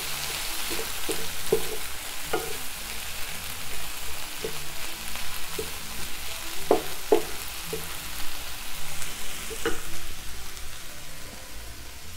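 Crumbled tofu and diced vegetables sizzling in a non-stick frying pan, cooking down a little added water, while a wooden spatula stirs and scrapes them with scattered knocks against the pan. The stirring stops near the end and the sizzle dies down.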